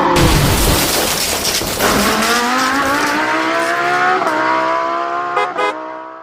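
Engine-like sound effect: a loud pitched whine with many overtones. It opens with a sudden noisy burst, dips about two seconds in, then rises steadily in pitch like an engine accelerating. Two short clicks come near the end before it fades away.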